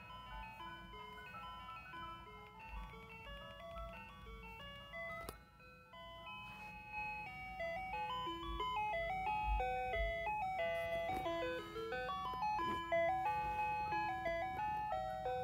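Toy ice cream truck playing its electronic ice cream truck jingle, a tinny chiming tune of quick notes that gets louder about halfway through.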